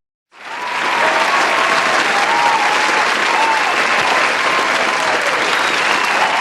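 Crowd applauding, fading in quickly after a brief silence at the start and then holding steady, with faint rising and falling calls from the crowd over the clapping.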